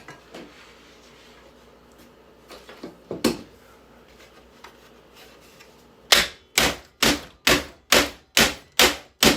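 Small hammer striking a boombox's plastic casing: a knock about three seconds in, then eight sharp, evenly spaced blows at about two a second near the end.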